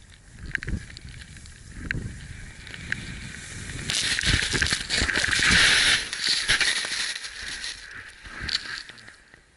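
Snow hissing and scraping under a board sliding downhill, loudest and densest from about four to seven seconds in. Low wind buffeting and knocks on the microphone.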